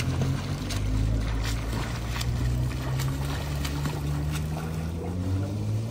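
A swimmer's arm strokes splashing in pool water at a steady pace, about one splash every three-quarters of a second, fading out after about four seconds. Under it runs a steady low mechanical hum.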